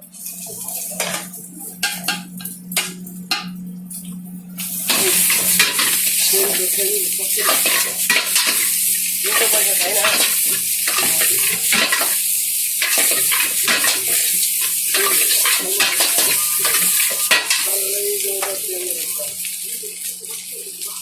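A metal ladle clinks and scrapes in a pan. About five seconds in, a loud sizzle starts suddenly as food hits the hot oil, and it carries on with repeated ladle clangs and scrapes while the fried rice is stir-fried.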